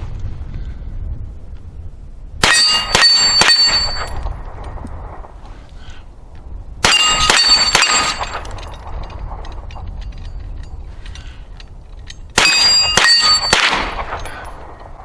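Steel target plates clanging, three times. Each time a quick cluster of metal strikes is followed by a high ring that fades over about a second.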